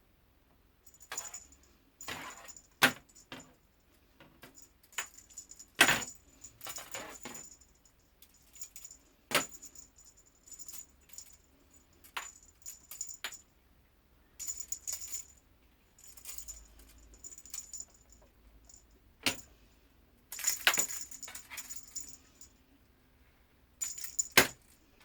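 Metallic jingling in repeated bursts with a thin high ringing, mixed with sharp clicks and knocks, coming and going irregularly.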